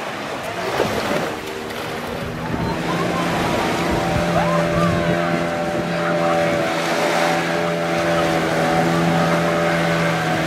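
Motorboat engine running at a steady pitch while towing a banana boat, over wind and surf noise.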